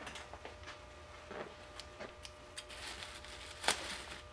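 Scattered small crinkles and clicks from a plastic bubble-wrap bag being handled, then a louder snip of scissors cutting into the plastic near the end.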